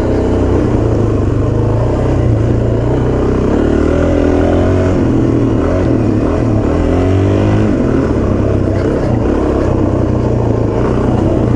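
Suzuki DR-Z400's single-cylinder four-stroke engine running steadily under way on a dirt trail, with the revs shifting up and down around the middle.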